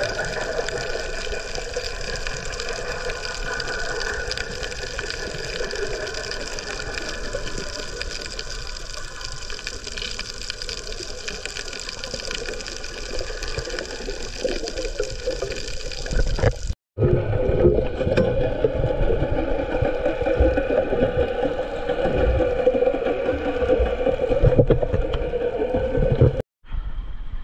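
Underwater sound picked up by a snorkeler's camera: a steady muffled wash of water with a constant droning hum running through it. It drops out briefly about two-thirds of the way through, and the water noise comes back louder and lower. It drops out again near the end.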